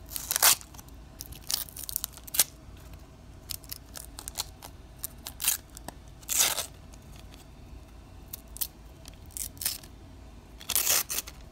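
Wrapper of a 1990 baseball card pack being torn open and peeled back by hand. It gives irregular crinkles and rips, with bigger tears about half a second in, in the middle and near the end.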